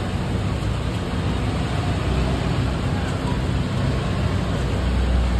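Steady low rumbling background noise, like street traffic, swelling slightly near the end.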